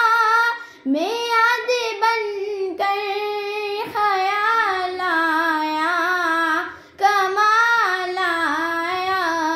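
A girl singing a naat (Urdu devotional song in praise of the Prophet) unaccompanied, holding long wavering, ornamented notes in phrases broken by two short breaths.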